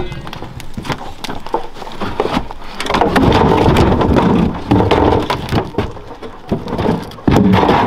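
Sawn logs being thrown off a truck bed onto a log pile: repeated wooden knocks and thuds. The loudest stretches, as logs tumble onto the pile, come about three seconds in and again near the end.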